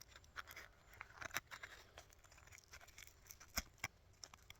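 Faint, irregular scratching and tearing of dry birch bark as fine shreds are pulled off it for fire tinder, with a sharper crackle about three and a half seconds in.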